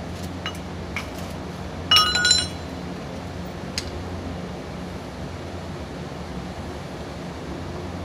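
A few light metal clicks and one short, ringing metal clink about two seconds in, the loudest sound, over a steady low hum.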